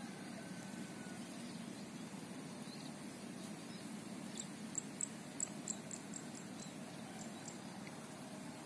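Steady low outdoor background noise, with a run of about a dozen short, high chirps over about three seconds in the middle. A faint, drawn-out whistle comes near the start.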